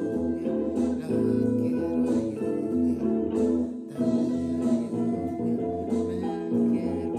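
Guitar-led music with plucked and strummed notes, and drum hits keeping time.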